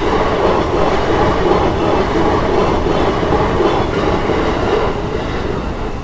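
Nambu Line electric commuter train passing over a level crossing: steady noise of wheels running on the rails, easing off near the end as the last car clears the crossing.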